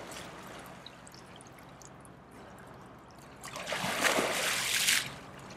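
River water splashing around a man in a drysuit as he wades in the cold river. It is soft sloshing at first, then about three and a half seconds in a louder spell of splashing and running water that lasts a bit over a second.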